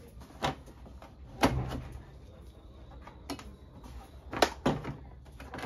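A handful of sharp knocks and clacks, irregularly spaced, two of them close together near the end, like hard objects being set down or handled on a work surface.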